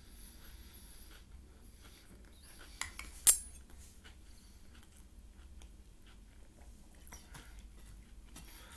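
Metal fork knocking against a plate: a light tap just before three seconds in, then a sharp clink.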